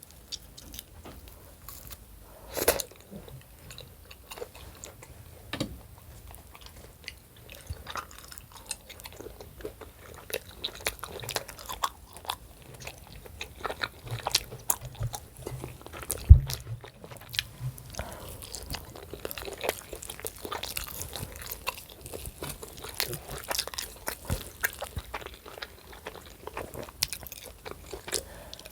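A person chewing and biting food close to the microphone, with crunching and irregular small clicks throughout. A single sharp knock about sixteen seconds in is the loudest sound.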